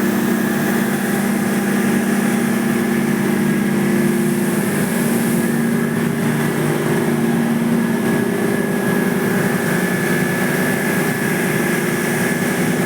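Air-cooled condensing unit running steadily: an even machine hum with a fan rush and a thin high whine, unchanging throughout.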